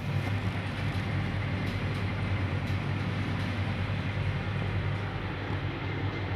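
Refrigerator running with a steady low hum and rumble, the noise the video offers as a sign of a hidden fault.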